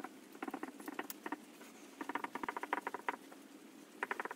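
A felt-tip marker squeaking as characters are written by hand. It comes in three runs of quick, squeaky strokes, with short pauses between them.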